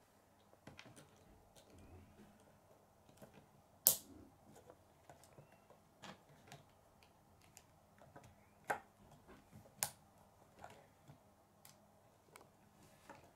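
Plastic K'nex pieces clicking and tapping as they are handled and snapped onto a model on a wooden table: irregular small clicks, the sharpest about four seconds in.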